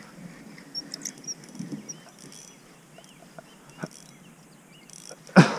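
Faint scattered clicks and light knocks, with small bird chirps in the background, then one sharp loud knock near the end.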